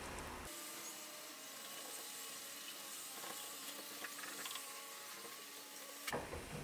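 Faint, steady hissing swish with a few soft taps: a paintbrush spreading wood glue over end-grain wooden strips.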